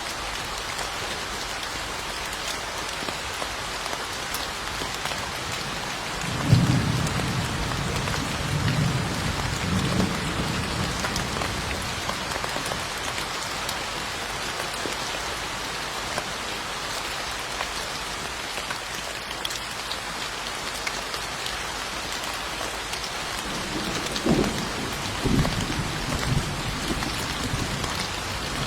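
Steady rain falling, with low rolls of thunder twice: one about six seconds in that lasts a few seconds, and another near the end.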